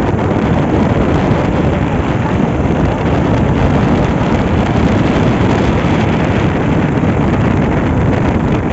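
Loud, steady wind buffeting the microphone, a dense low rumble with no distinct events.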